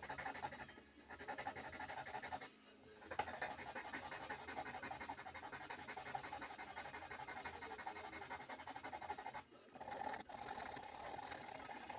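Small wooden pendant being worked by hand with a file: a steady scratchy rasping of rapid short strokes, with brief pauses about three seconds in and again near ten seconds.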